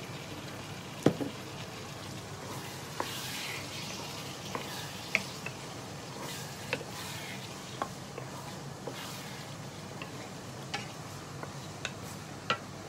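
Diced tofu frying in a non-stick pan with a steady sizzle, stirred with a wooden spatula that knocks and scrapes against the pan about a dozen times; a sharp knock about a second in is the loudest.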